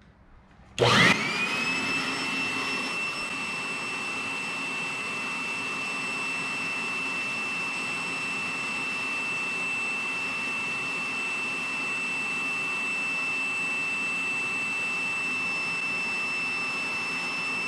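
A blower switched on about a second in, its motor whine rising quickly and settling into a steady high-pitched rush of air that runs on evenly.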